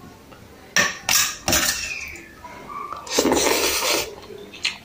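A steel spoon clinking and scraping against a stainless steel plate of biryani as the rice is scooped: a few sharp clinks in the first second and a half, then a longer stretch of scraping and rustling about three seconds in.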